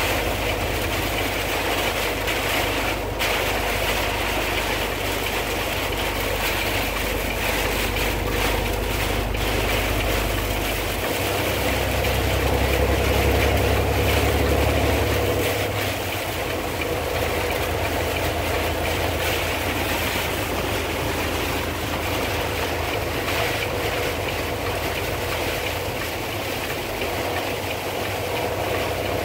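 Heard from inside a vehicle driving on a highway in heavy rain: a steady engine and road drone with rain hitting the windshield. The low drone swells louder for a few seconds about midway.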